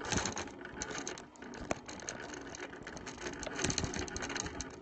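Longarm quilting machine stitching, a dense run of fast needle clicks, with one sharper click a little under two seconds in.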